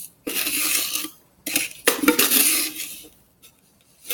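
Utensil scraping and clinking against a bowl in two bursts of about a second each, the second starting about a second and a half in; after about three seconds it falls almost quiet.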